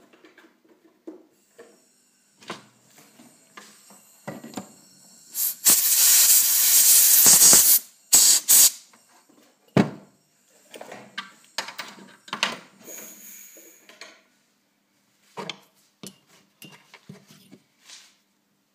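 A loud hiss lasting about two seconds, followed by two short hisses, among scattered clicks and knocks of a small metal nitro engine and tools being handled on a workbench.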